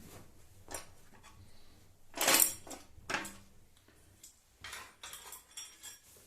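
Small loose metal hardware, washers and bolts, clinking and clattering as it is handled: a string of separate clinks, the loudest about two seconds in and a few lighter ones near the end.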